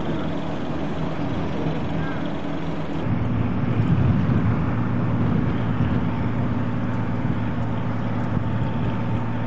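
Steady engine hum. About three seconds in it gives way to a deeper, steadier hum.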